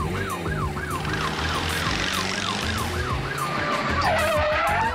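Emergency-vehicle siren in a fast yelp, its pitch sweeping up and down about three times a second, steady in level.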